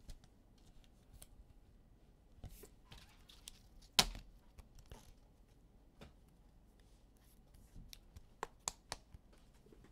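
Hands handling trading cards and their packaging: scattered soft rustles and clicks, with one sharp click about four seconds in and a few more near the end.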